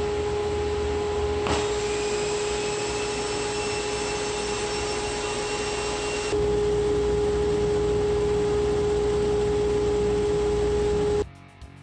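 A Harbor Freight 2 HP dust collector fitted with a 12-inch Rikon rear-facing-vane impeller runs at full suction: a steady rush of air with a strong hum. About a second and a half in there is a knock, and a thin, slightly rising whine joins as a board closes off the table saw opening. The whine drops out abruptly later, and the noise cuts off suddenly near the end.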